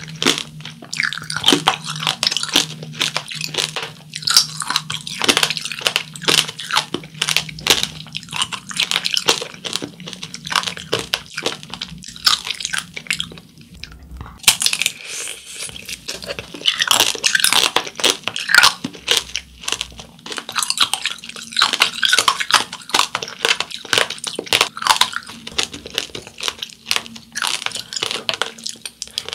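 Hard sugar-candy shell of a tangerine tanghulu crunching and cracking between the teeth as it is chewed close to the microphone. It breaks off briefly just before the middle, and a fresh bite sets off a new run of sharp crunching.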